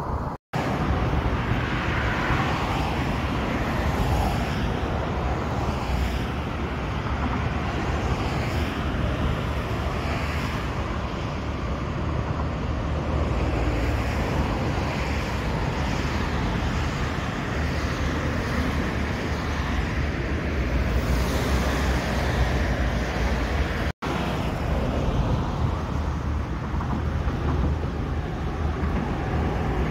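Steady outdoor noise by the sea: wind rumbling on the microphone over the wash of water on the shore rocks. It cuts out completely for a moment twice, near the start and about two-thirds of the way through.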